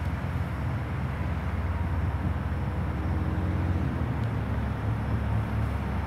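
Heavy truck's diesel engine running at low revs: a steady low rumble with a fast pulsing beat.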